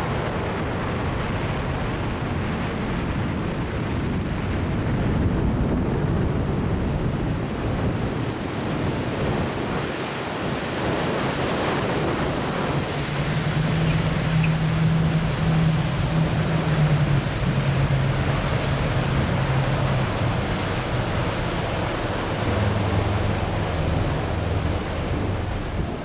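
Wind buffeting the microphone and rushing water from a motorboat underway, under a low engine drone that shifts in pitch a few times.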